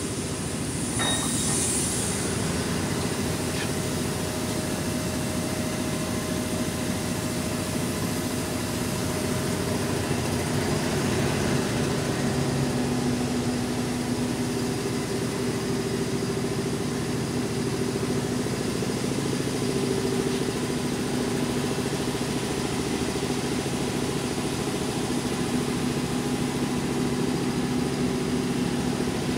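Kitamura Mycenter 2X vertical machining center running: a steady mechanical hum with several held tones that swell and fade, and a brief hiss about a second in.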